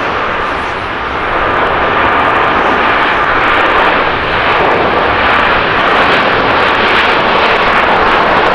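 Boeing 777-300's twin turbofan engines at takeoff thrust during the takeoff roll: a loud, steady jet rush that swells about a second and a half in and then holds, with a faint steady whine in the first couple of seconds.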